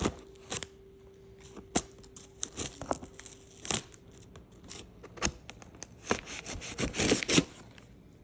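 Packing tape being peeled and torn off a cardboard box, with scattered knocks and scrapes as the box is handled, and a longer stretch of tearing and rustling about seven seconds in.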